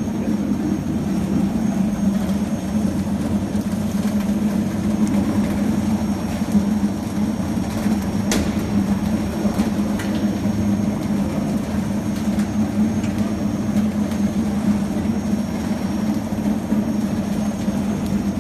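Stainless-steel peeling machine running with a steady low hum and rumble. One sharp click about eight seconds in.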